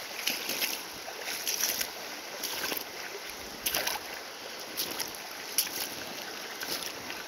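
Footsteps wading through a shallow river: irregular splashes, one every half second to a second, over the steady rush of the water.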